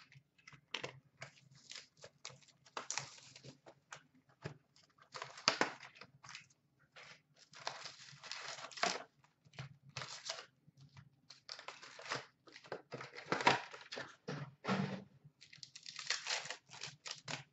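Hands tearing open and crinkling the packaging of a box of Upper Deck SP Authentic hockey cards and its packs: irregular rips and rustles, some short and some drawn out, with brief pauses between.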